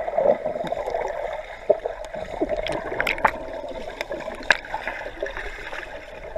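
Swimming-pool water gurgling and sloshing, with scattered small splashes, as a swimmer swims across the pool.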